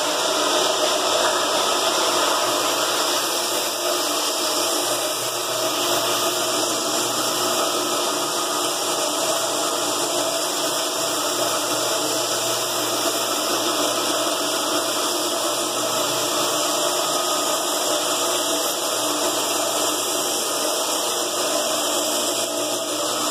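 Electric floor buffer running steadily, its motor and pad droning without a break as it takes old finish off a floor.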